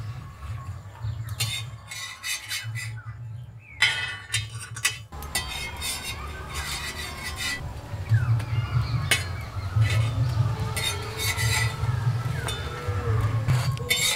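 Metal spatulas scraping and clinking against an iron tawa as a sandwich frying in ghee is pressed and turned, in repeated short clatters over a steady low rumble.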